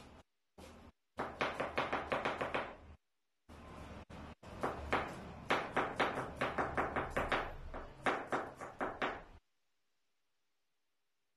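Kitchen knife chopping cabbage on a cutting board: a few light cuts, then two quick runs of sharp strokes, about five a second, with a brief pause between them. The chopping stops suddenly about two seconds before the end.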